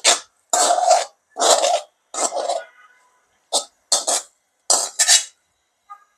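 A metal spoon scraping thick curry out of a metal wok into a serving bowl, in about eight quick, rasping strokes that stop shortly before the end.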